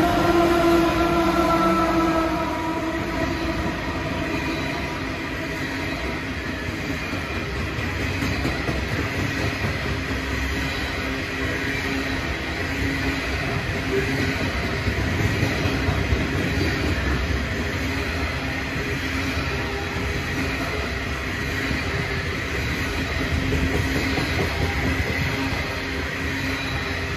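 Last of three diesel-electric freight locomotives passes, its engine drone fading within the first two seconds. A long string of loaded coal hopper wagons then rolls by with a steady rumble and wheel clatter on the rails, and a faint high squeal from the wheels.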